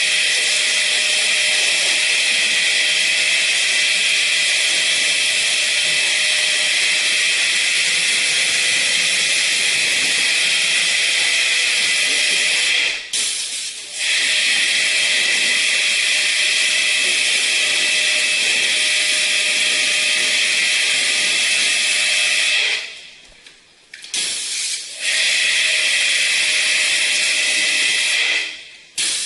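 High-pressure spray nozzle hissing steadily, cut off briefly about 13 s in, for about a second around 23 s, and again just before the end, as if the trigger is released and squeezed again.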